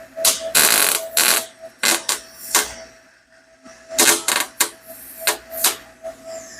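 MIG welder stitch-welding a stainless steel exhaust header: a rapid series of short crackling arc bursts, each under a second, with brief gaps between, over a faint steady tone.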